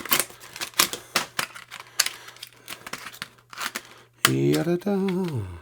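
Plastic packaging of a RAM kit being pried and torn open by hand: an irregular run of crackles, snaps and clicks for about four seconds. A voice comes in near the end.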